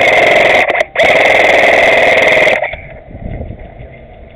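Airsoft rifle firing full-auto close to the microphone: a short burst of under a second, a brief break, then a longer burst of about a second and a half that stops suddenly.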